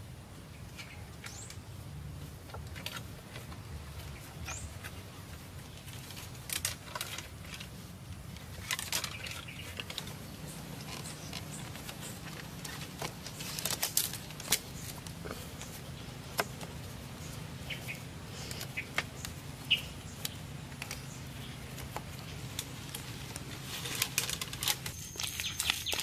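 Bamboo poles and wooden sticks knocking and rattling while being handled and fitted into a lashed frame: scattered sharp clicks and taps over a steady low hum, with a thin high steady tone coming in near the end.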